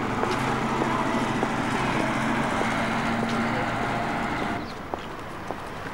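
A truck's engine running as it drives past on the road, a steady low hum with traffic noise that drops off about four and a half seconds in.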